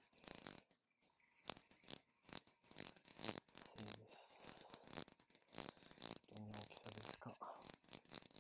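Faint, irregular clicking and rattling of a fishing reel being cranked with a fish on the line.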